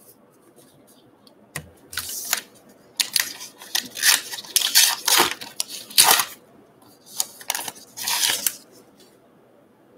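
A baseball card pack's wrapper being torn open and crinkled by hand, in a run of crackling bursts from about one and a half seconds in until near the end.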